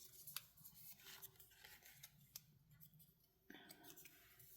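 Near silence with a few faint, light clicks and a soft rustle of paper being handled.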